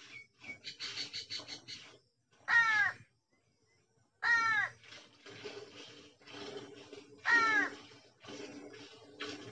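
A crow cawing loudly three times, each caw short and falling in pitch. Between the caws come quick, regular squirts of milk as a cow is hand-milked into a steel pail.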